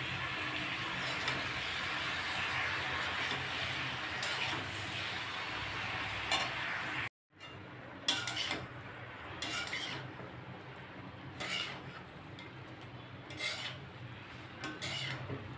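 Vegetables and spinach sizzling steadily in a hot steel karahi; after a brief cutout about halfway, a metal spatula stirs and scrapes against the pan in separate strokes every second or two over a fainter sizzle.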